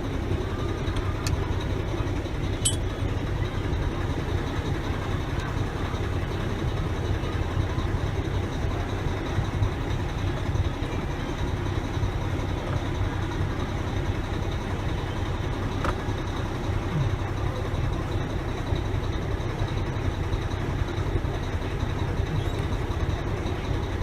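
A truck engine idling steadily, a low even rumble, with a few faint clicks.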